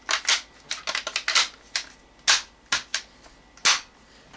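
About ten sharp metallic clicks and clacks, irregularly spaced, from a GSG-5 .22 rifle's action, trigger and magazine being worked by hand during a function test of a newly fitted lower.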